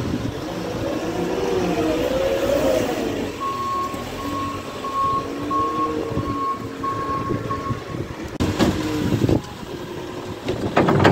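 Manitou telehandler's diesel engine revving up and down as it works the loader bucket into the manure heap. From about three seconds in, its reversing alarm beeps steadily, about twice a second, for some four seconds.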